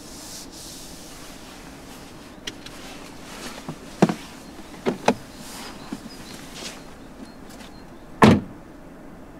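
Sharp clicks and knocks from a 2022 Hyundai Elantra's fittings being worked by hand: a few around the middle and one heavier thump near the end, over a faint steady hum.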